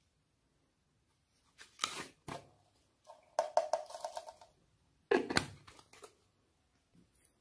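Small plastic toy containers handled, opened and shaken over a tray, in three short bursts of clicking and rattling as loose bits such as small rubber bands are tipped out.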